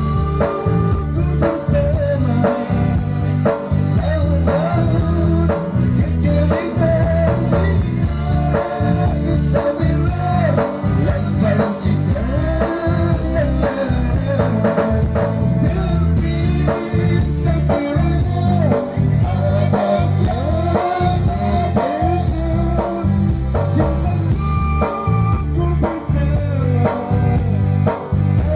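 Live band music with a singer's voice carrying the melody over guitar and a steady, driving bass beat.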